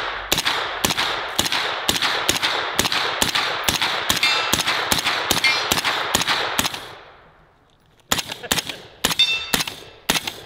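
Rapid semi-automatic gunfire, about three shots a second, each shot followed by a metallic ring. It stops about seven seconds in, then picks up again a second later with a few more shots at an uneven pace.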